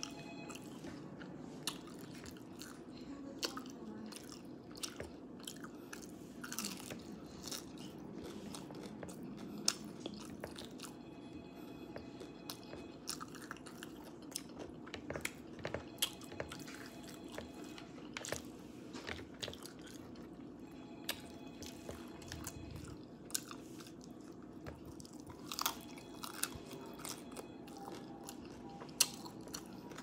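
Close-miked chewing and biting of crunchy hard-shell tacos: irregular crisp crunches of the fried shell and wet mouth sounds, over a steady low hum.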